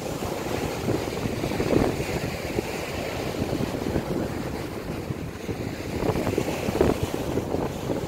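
Small sea waves washing and breaking on a sandy beach, with wind buffeting the microphone in an uneven low rumble; the surf swells louder about two seconds in and again between six and seven seconds.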